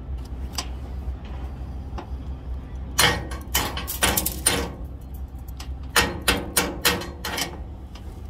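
Chipping hammer knocking slag off a fresh overhead 7018 weld bead on galvanized steel: two flurries of quick, sharp strikes, about three seconds in and again about six seconds in.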